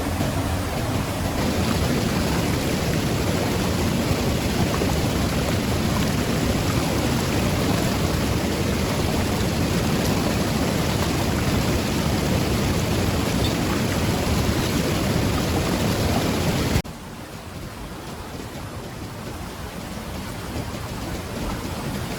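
Steady rushing water noise that cuts off abruptly about 17 seconds in, giving way to a quieter water noise that grows louder toward the end.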